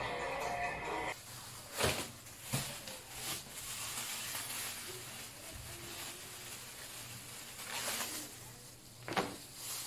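Thin plastic bag crinkling and rustling as it is handled and shaken open, with a few sharper crackles.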